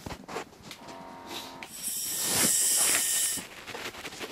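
An Entonox (gas and air) demand valve hissing as the patient draws a long breath through its mouthpiece. The main hiss starts about two seconds in and lasts under two seconds. It is pain-relief gas taken during a sickle cell pain crisis.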